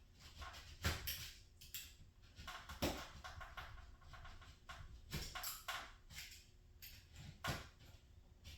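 Irregular knocks and clatter of work on the garage door, with four sharper knocks about every two to two and a half seconds and scraping or rustling between them.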